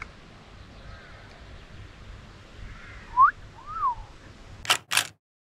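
Open-air field ambience with faint bird chirps. About three seconds in come two short whistled notes, the first rising and the second rising then falling. Two sharp, loud clacks follow in quick succession near the end, then the sound cuts off.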